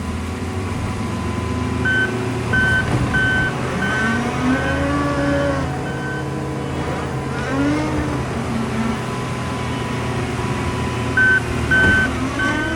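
New Holland C362 skid steer's engine running under work, its pitch rising and falling, while its backup alarm beeps steadily as it reverses, once from about two seconds in to about six seconds in and again near the end.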